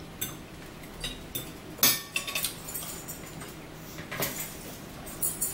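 Metal forks and spoons clinking and scraping against plates and bowls during a meal, in scattered short clinks, the loudest about two seconds in.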